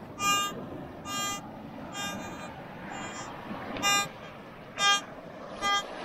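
Metal detector giving short, pitched beeps about once a second, some strong and some faint, as its coil sweeps back and forth over the beach sand, over a steady hiss of surf. The beeps are the detector's signals from small targets or mineralized sand.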